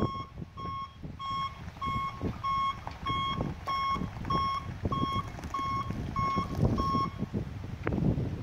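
2001 Chevy 3500 dump truck's reversing alarm beeping steadily as the truck backs up, about 13 beeps at a bit under two a second that stop about seven seconds in, over a low rumble.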